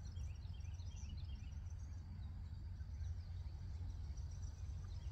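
Birds chirping in many quick, short notes over a steady low rumble.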